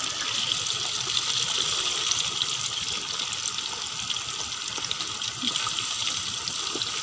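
Chicken pieces deep-frying in hot oil in a wok, a steady sizzle with fine crackling throughout.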